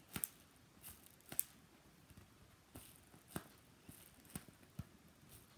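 Faint, irregular paper rustles and small crinkling clicks from a handmade paper squishy being squeezed and turned in the hands.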